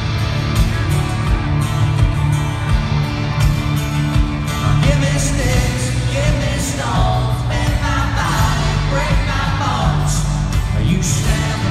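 Live rock-country band playing in an arena, heard from the stands with the hall's echo: drums, bass and guitars, with a singer's voice over the band from about five seconds in.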